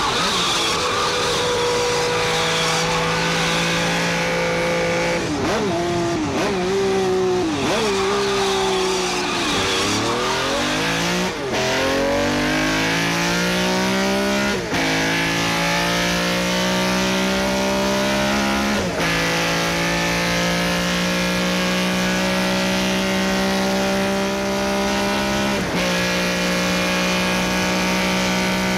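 Mazda MX-5's four-cylinder engine driven hard: revs held high, then dipping and blipping while slowing, then pulling up through the gears with a sharp drop in pitch at each of three upshifts.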